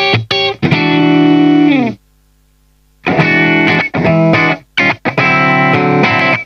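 SQOE SEIB950 electric guitar with alnico humbuckers, played through a clean tone in a series of chords with short sharp stops. About two seconds in the playing stops for about a second, leaving only faint amp hum, then the chords resume.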